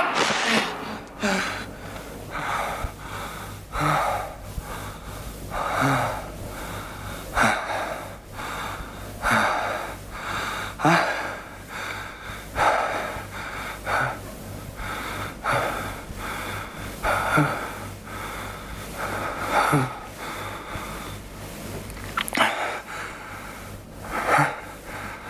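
A person breathing heavily: a loud, noisy breath about every one and a half to two seconds, some with a short catch in the voice, over a faint steady hum.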